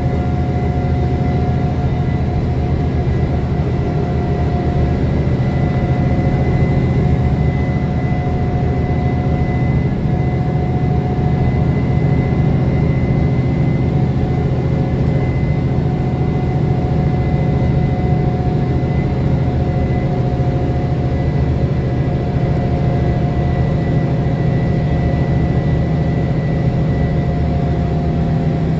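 Mercedes-Benz Conecto city bus under way, heard inside the cabin: its OM 457 hLA six-cylinder diesel runs at a steady pace with a low rumble and a steady high whine.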